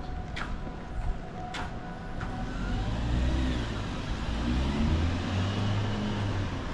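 A car or other motor vehicle passing close, its engine giving a low hum that rises and falls in pitch, with two sharp clicks about a second apart before the engine sound builds.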